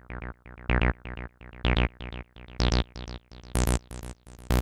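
Hard techno synth sequence: quick, short repeated notes, each sweeping down from bright to dull, with a heavier hit with deep bass about once a second. The last few hits turn brighter and noisier.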